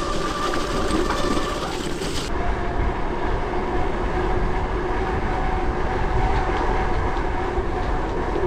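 Steady riding noise from a gravel bike on a road: wind rushing over the bike-mounted microphone over the rumble and hum of the tyres. The high hiss drops away about two seconds in.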